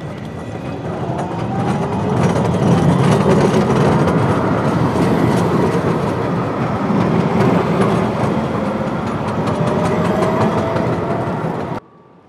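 A tram passing close by: its steady rumble of steel wheels on the rails builds up over the first two seconds, with faint rising whines over it. The sound cuts off abruptly near the end.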